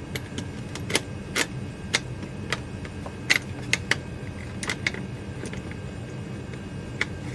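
Irregular light clicks and clacks, about a dozen spread over several seconds, from a roller stand being handled and set under a model locomotive's trucks, over a steady low hum.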